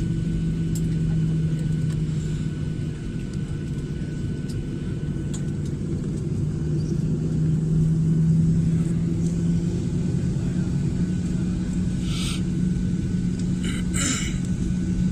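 Airliner engines running steadily while the aircraft taxis, heard inside the cabin as a low, even drone with a steady hum. Two short bursts of hiss come near the end.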